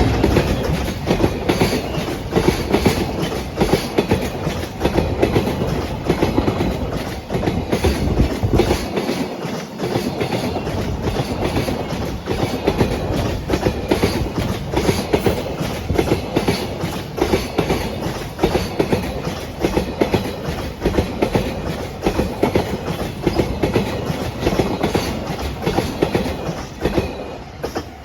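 A JR Freight train of container flat wagons (Koki) rolls past close by, its wheels making a rapid, continuous clickety-clack over the rail joints. It ends abruptly near the end as the last wagon clears.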